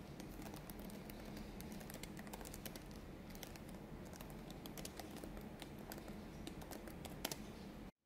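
Fingers typing on a MacBook laptop keyboard: a faint, quick, irregular run of key clicks, with one louder click about seven seconds in.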